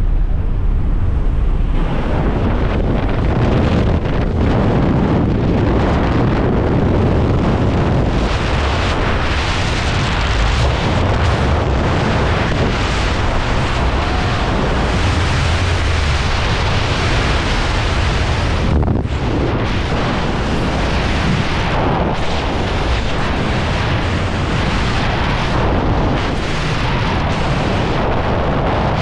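Skydiving freefall wind blasting over the camera's microphone: a loud, steady rush that builds about two seconds in as the jumper leaves the aircraft door, with a brief drop-out about two-thirds of the way through.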